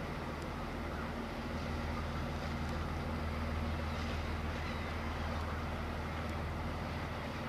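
Police patrol boat's engines running steadily as it cruises past, a low drone with a steady hum that grows slightly louder around the middle.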